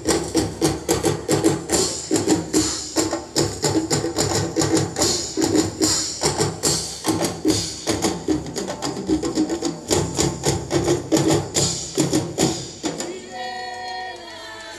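Live percussion ensemble of drum kit and hand drums playing a fast, steady beat. Near the end the drumming stops and a single voice sings or calls a short, held line.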